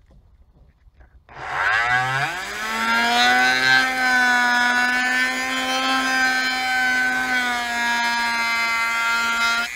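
Dremel rotary tool starting up about a second in, its whine rising in pitch as it spins up, then running steadily as its bit grinds out a hole in a plastic steering column cover.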